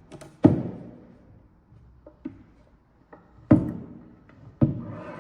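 Hollow wooden knocks from handling a linden-wood folding board blank: three loud thunks with a short ringing decay, about half a second, three and a half, and four and a half seconds in, with lighter taps between.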